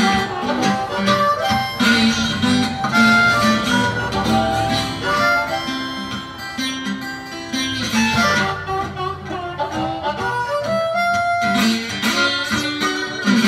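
Archtop guitar playing an instrumental break in a country blues, with long sustained lead notes over a steady low bass rhythm.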